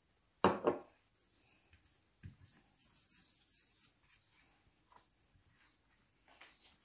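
Hands rubbing salt, turmeric and chili powder into raw hilsha fish steaks on a brass plate: soft scraping and rubbing with small clicks, after a short loud knock about half a second in.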